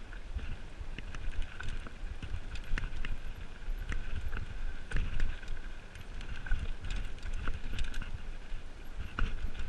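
Mountain bike rolling over a rocky dirt trail: tyres crunching and the bike rattling, with frequent sharp clatters. A low wind rumble on the microphone runs under it.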